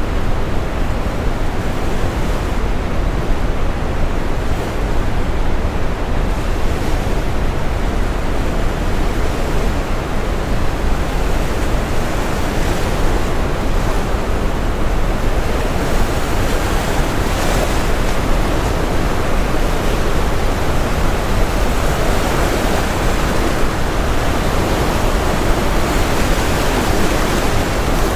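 Steady brown noise, a deep even hiss, mixed with ocean waves breaking and washing in. The surf swells louder over the second half.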